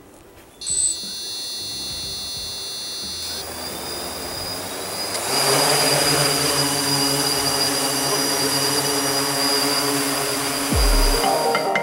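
Electric motors and propellers of a 3DR X8+ coaxial octocopter spinning up. A steady high whine starts suddenly about a second in as the motors start turning. From about five seconds in it grows into a louder, steady propeller whir as the throttle comes up and the drone lifts off to hover.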